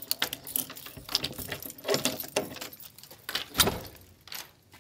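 Keys jangling and a key working in the lock of an old wooden door: a run of small metallic clicks and knocks, with one sharp click about three and a half seconds in.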